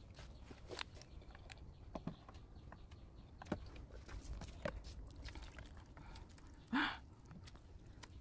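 Faint eating sounds: chopsticks and a metal spoon clicking against a stainless steel bowl of instant noodles, with slurping of the noodles. One louder, short sound comes about seven seconds in.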